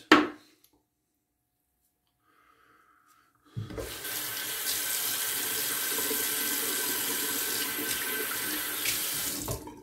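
A brief sharp sound, a few seconds of quiet, then a bathroom tap running steadily into the sink for about six seconds before shutting off near the end.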